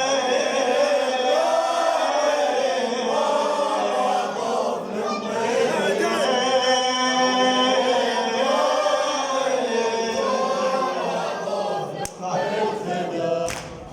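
Male voices chanting a Husseini latmiyya, a Shia mourning lament, in chorus, with long held melodic lines. The chant dips briefly twice near the end.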